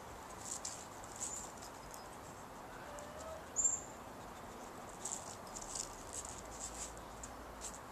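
Faint, scattered patter and rustle of a corgi's and a merle puppy's paws on flagstones and dry leaves as they play, with one short high chirp about halfway through.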